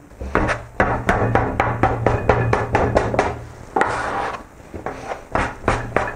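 Plastic dough scraper chopping repeatedly through a shaggy, floury bread dough and striking the stone worktop beneath: a fast run of sharp taps, about four a second, with a short softer pause a little past the middle. This chopping is a way of kneading the dough with the scraper.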